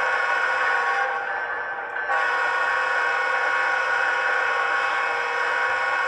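Model locomotive's DCC sound decoder playing a diesel air-horn chord through a small speaker. The first blast fades out about two seconds in, and a second long blast starts sharply right after and holds.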